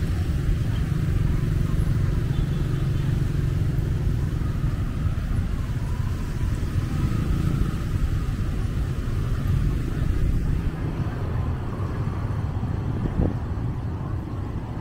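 Street traffic in the rain: cars and motorbikes passing on a wet city street over a steady low rumble, with the high hiss thinning out about ten seconds in.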